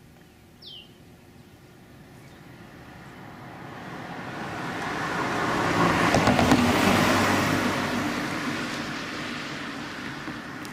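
Sacramento Northern electric interurban train running along the track, its wheel and running noise swelling to a peak about six seconds in, then easing off. A short falling bird chirp comes near the start.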